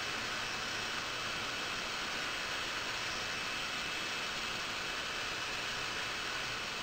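Dental high-speed handpiece running with a small flame-shaped diamond bur: a steady hiss with a faint high tone as the bur bevels the tooth enamel.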